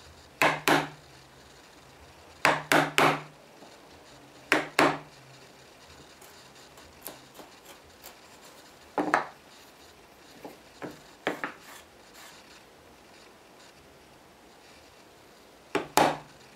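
Bench chisel cutting into a wooden board by hand: short, sharp cuts, mostly in pairs or threes, a few seconds apart.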